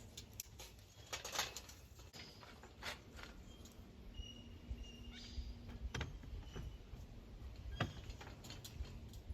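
Faint short chirps of small birds, among a few scattered knocks and scrapes over a low rumble.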